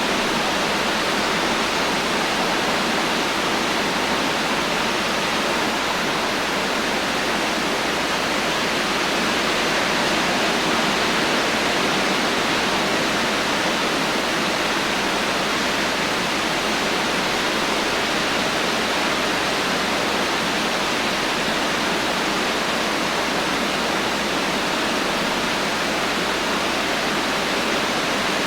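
Heavy rain falling in a steady, even hiss, with no thunder and no separate drops or gusts standing out.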